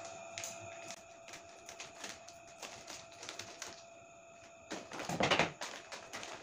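Scissors snipping across the top of a potato chip bag, a run of small clicking cuts, followed about five seconds in by a louder rustle as the cut bag is handled.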